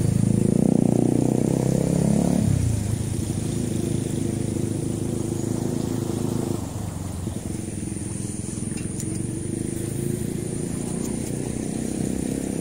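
Motorcycle engine running, loudest in the first two seconds or so, then holding a steadier note for the rest of the time.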